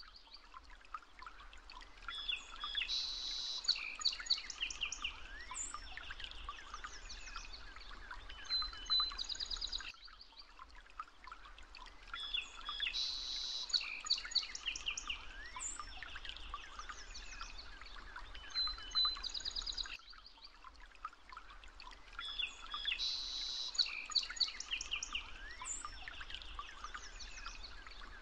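A looped birdsong ambience: several birds chirping and trilling over a steady background hiss, the same ten-second stretch repeating.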